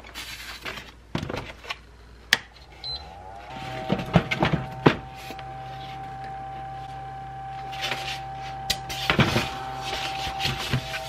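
Small motor of a foam egg incubator starting about three and a half seconds in and humming steadily, with knocks and scrapes of the plastic lid and foam cover being fitted on.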